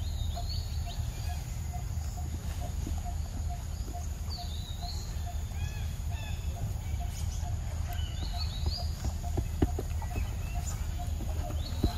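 Forest ambience: birds chirping and calling on and off, over a short note repeated evenly about twice a second and a steady low rumble. A few sharp clicks come near the end.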